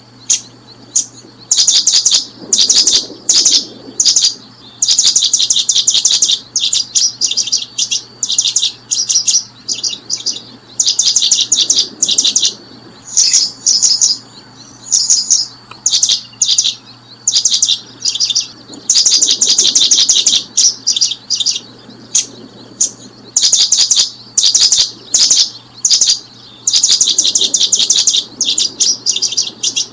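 Small birds chirping in quick, high-pitched trains of notes, burst after burst with short gaps between.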